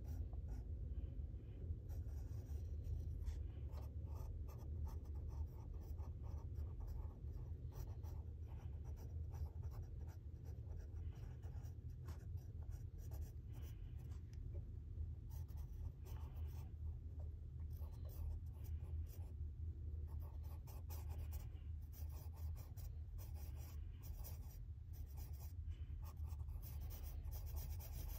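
Pencil scratching on sketchbook paper in quick, irregular strokes while drawing, over a low steady hum.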